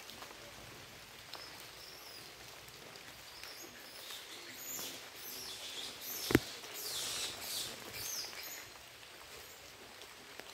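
Outdoor ambience in a forest canopy: a steady background hiss with faint bird chirps and a high hiss that swells for a few seconds in the middle. One sharp knock sounds about six seconds in.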